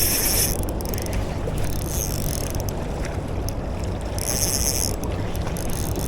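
Shimano Sedona 3000 spinning reel being cranked in bursts, its gears whirring, over a steady rush of wind and water noise.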